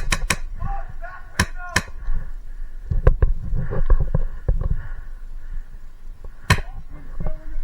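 Airsoft guns firing scattered single shots, sharp cracks a second or more apart, about five in all, with the loudest near six and a half seconds in, over a low rumble of movement and wind.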